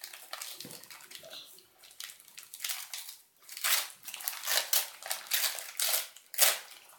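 Wrapping paper being crinkled and torn off a small gift by hand: light rustling at first, then a run of short tearing rips through the second half, the loudest near the end.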